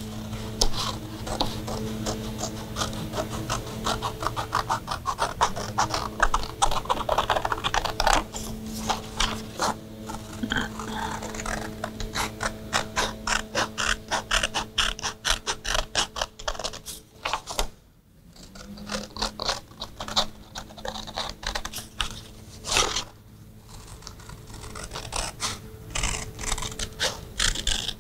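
Scissors cutting around a paper circle: a rapid run of snips with paper rustling, pausing briefly about two-thirds of the way through.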